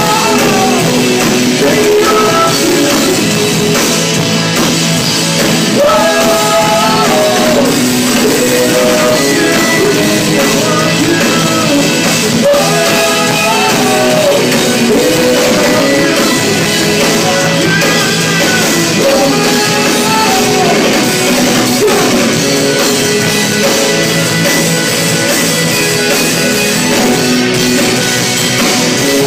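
Live rock band playing loudly: electric guitars and drums, with a sung melody on top.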